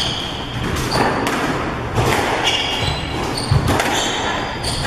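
Squash rally: the ball hitting rackets and the court walls in sharp knocks, roughly one every half second to a second, with short high squeaks of the players' shoes on the wooden court floor.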